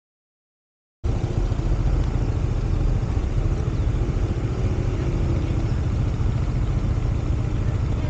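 Engine of a WMoto RT3 250 cc maxi scooter running steadily, a low pulsing rumble that starts abruptly about a second in.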